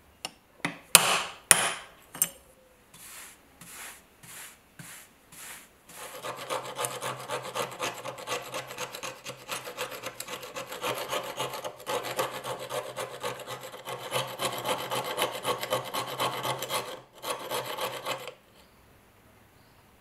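A few sharp metal knocks, then about twelve seconds of continuous scraping of a flat steel tool against a rusty pocket knife's liners and rivets as it is worked apart.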